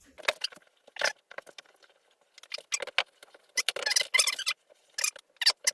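A workbench vise being wound open and handled: irregular short clicks, scrapes and knocks, busiest about four seconds in.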